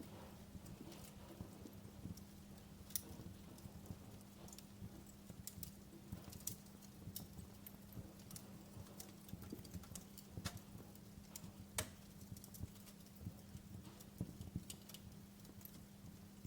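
Wood fire in a fireplace crackling, with irregular sharp pops and snaps; the most prominent come about three seconds in and about twelve seconds in.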